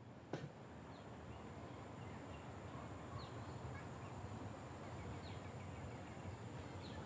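Quiet outdoor ambience with a faint steady hiss and a few brief bird chirps now and then. There is one sharp click about a third of a second in.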